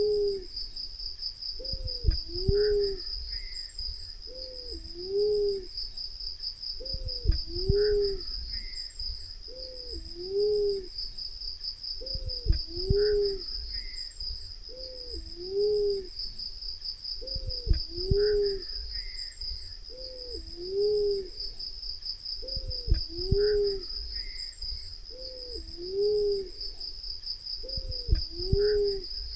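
Black-naped fruit dove calling: a low two-part coo, a short falling note followed by a fuller note, repeated evenly about every two and a half seconds, played as a lure call to draw the birds in. A steady high-pitched insect trill runs behind it.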